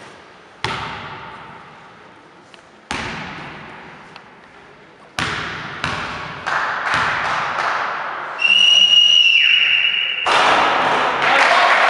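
Basketball bouncing on a gym's wooden floor, each bounce echoing through the hall: a few single bounces, then quicker dribbling. Near the end a steady high whistle-like tone holds for about two seconds and drops in pitch before it stops. A loud, even rush of noise follows it.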